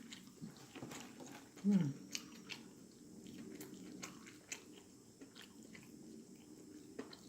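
Close-up chewing and crunching of Popeyes spicy fried chicken, with many small crackles and wet mouth clicks, and one short falling hum of the voice just under two seconds in.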